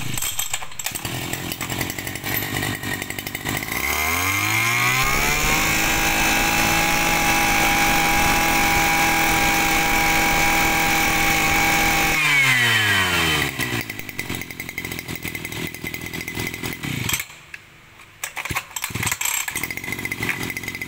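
Robin 27 cc two-stroke brush cutter engine, just pull-started, runs at idle, then is revved up to high speed for about seven seconds and falls back to idle. The sound is crisp and the idle is smooth and pleasing.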